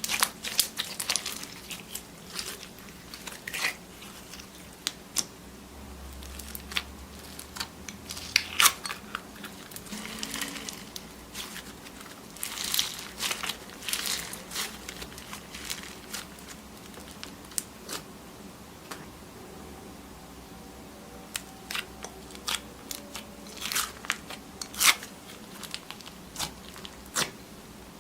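Slime being squeezed and pressed by hand, giving irregular crunching and crackling clicks, some single and some in quick clusters.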